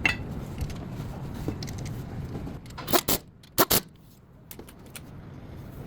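A low steady rumble, then four sharp metallic clinks in two close pairs about three seconds in, like keys or small metal parts knocking together.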